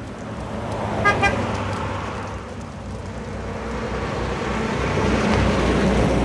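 A car horn gives two short beeps about a second in, over steady road noise from a vehicle that grows louder toward the end as it passes.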